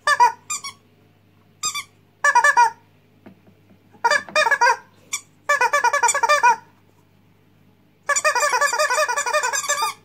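Rubber squeak toys, a rubber chicken and a small rubber bird, squeezed by hand: a series of about seven squeaky squawks of varying length, the last one the longest at about two seconds.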